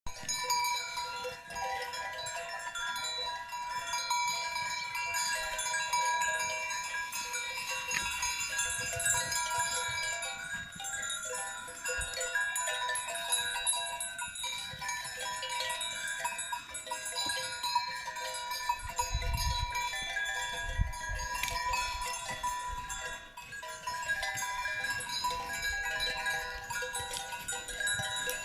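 Bells on a herd of grazing cows ringing continuously, many overlapping clanks and tones at once, with a few low rumbles about two-thirds of the way through.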